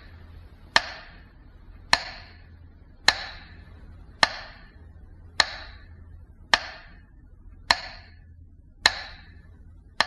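Slow, even ticking of a metronome, nine sharp clicks a little over a second apart, each with a short ringing tail, over a low hum: the beat of the Leningrad siege radio metronome.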